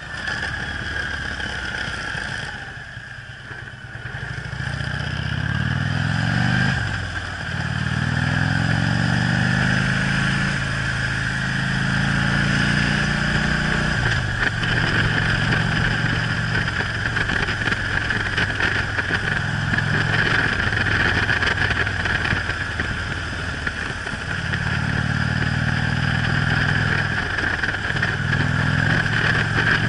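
Harley-Davidson touring motorcycle's V-twin engine eases off about three seconds in, then pulls away, its pitch climbing and dropping with each upshift. It then runs steadily at cruise, with another short pull through the gears near the end, over a steady hiss of wind.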